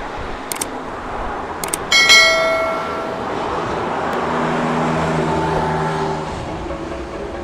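Two quick clicks and then a ringing notification chime from a subscribe-button animation; the chime is the loudest sound. From about four seconds in, a Porsche 911's flat-six engine runs at a steady pitch, easing off near the end.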